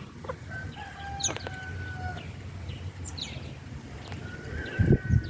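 Backyard rooster crowing, two long drawn-out calls, amid chicken clucking and short high chirps. Near the end come a couple of loud low thumps.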